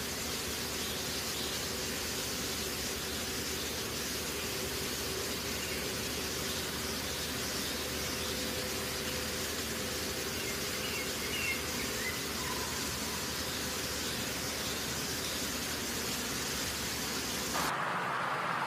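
Steady sizzle of food frying in hot oil. About a second before the end it changes abruptly to a duller hiss.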